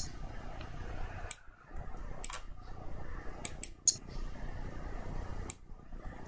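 Computer mouse clicking: a handful of sharp clicks spread out, some in quick pairs, over a low steady room hum.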